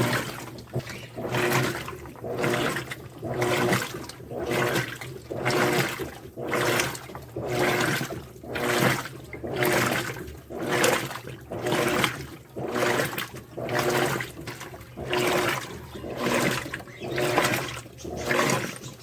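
Electrolux LTD13 Turbo Economia top-loading washing machine agitating its wash water: a swish of water about once a second over a steady motor hum.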